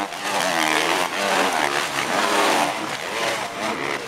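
Several 250 cc four-stroke motocross bikes racing over jumps, their engines revving up and down and overlapping.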